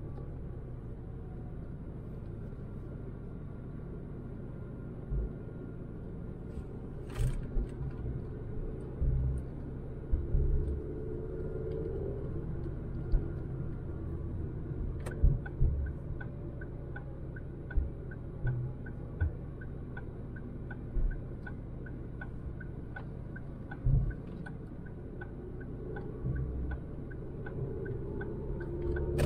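Road and engine rumble of a 2006 Ford Focus with a 100 bhp petrol engine, driving along, with short scattered thumps. About halfway through, a regular light ticking starts, about twice a second.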